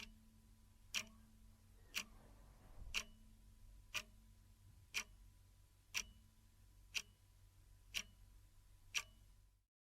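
Faint, clock-like ticking: ten sharp ticks, evenly spaced one a second.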